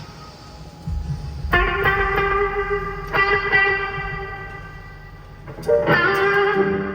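Electric guitar through an amp with effects, striking single chords and letting them ring: three chords about one and a half, three and six seconds in, each fading out.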